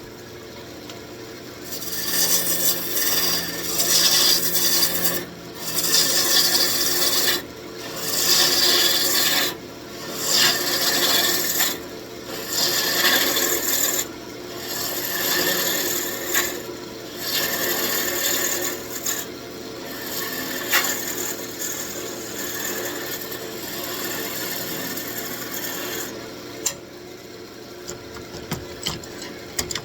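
Wood lathe running steadily while a turning gouge cuts the spinning wooden blank in repeated passes, each a second or two long with short breaks. The cutting is fainter for the last few seconds.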